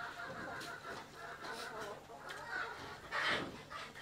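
Chickens clucking, a series of short calls, with one louder call a little after three seconds in.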